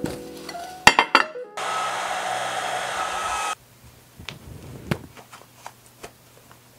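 Ceramic baking dishes clinking together a few times about a second in, then a hair dryer blowing steadily for about two seconds and cutting off suddenly. After that, only faint small clicks and rustles of handling.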